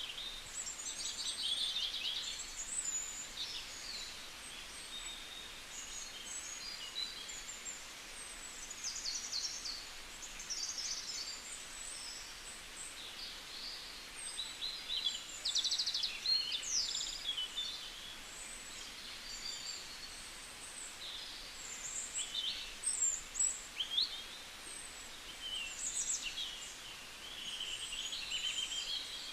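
Several songbirds singing and calling at once: a busy mix of short chirps, quick trills and buzzy phrases, high-pitched, over a faint steady background hiss.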